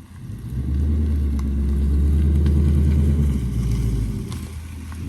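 Ford Mustang Mach 1's V8 exhaust revved: the note swells about half a second in, holds for a couple of seconds, then drops back before swelling again at the very end.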